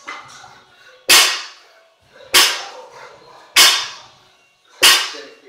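A 115 lb barbell with bumper plates striking the gym floor on touch-and-go deadlifts: four sharp impacts about a second and a quarter apart, each fading quickly.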